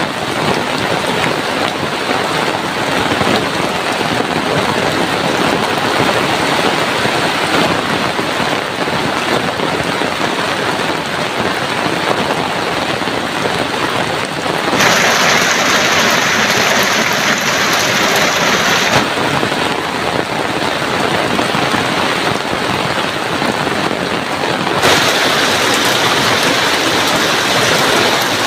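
Heavy rain falling steadily as a dense hiss. The hiss turns abruptly brighter and sharper about halfway through for a few seconds, and again near the end.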